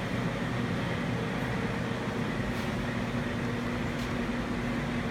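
Steady mechanical hum of running room machinery, with a low droning tone, and a few faint light clicks.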